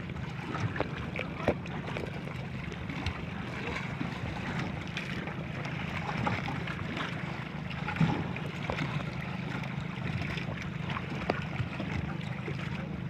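Small marine engine of a bangka outrigger boat running steadily at sea, with scattered light knocks over it.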